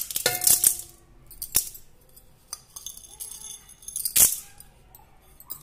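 Dry grains for idli batter pouring and rattling in a steel vessel, the steel clinking and ringing. There is a rattling clatter at the start, a single click, and a loud rush of grains about four seconds in.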